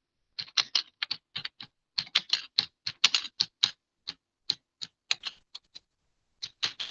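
Writing on a surface: a quick, irregular run of short, sharp clicks and taps as each stroke is written, with a brief pause near the end.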